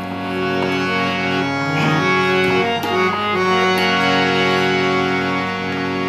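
Harmonium playing a bhajan melody in sustained, reedy held notes over a steady drone, the notes changing every half second or so.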